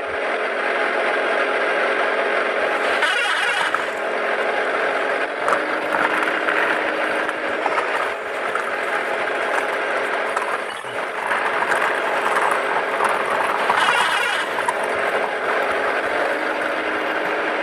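Plastic toy tipper truck rolling over a dirt path, its wheels and body rattling and grinding steadily; it starts abruptly and keeps going without a break.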